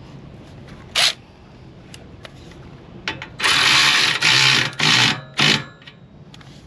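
A brief metallic clack about a second in, then four loud bursts of a tool spinning a nut down onto an exhaust mount bolt, the first the longest and the others shorter.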